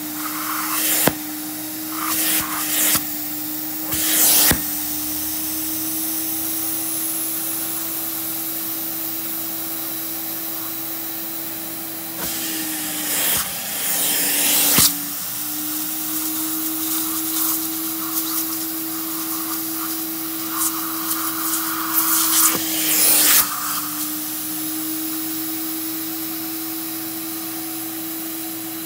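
Vacuum motor of a Janilink carpet-cleaning extractor running with a steady hum. Louder hissing surges of spray and suction come several times as the clear upholstery tool is worked over the couch fabric, and the motor's pitch dips briefly twice.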